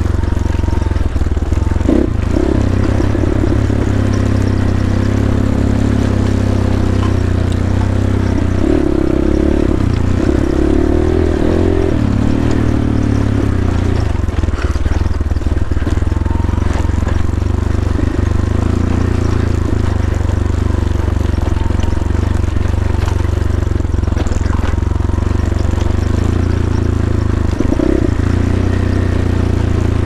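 GPX Moto FSE 250 dirt bike's 250cc single-cylinder engine running at fairly low revs, its pitch wavering a little as the throttle changes.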